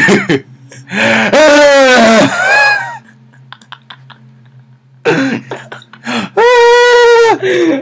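A boy's wordless yells: two long, loud cries, the first wavering in pitch about a second in, the second held at one steady pitch near the end, with shorter cries between.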